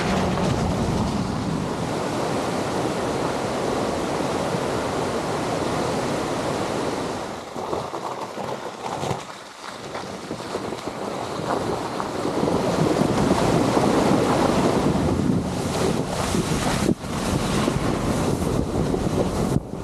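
Wind rushing over the microphone and a Tesla Model X's tyres splashing and hissing through slush and snow. It dips briefly about halfway, then grows louder, with a few sharp knocks near the end.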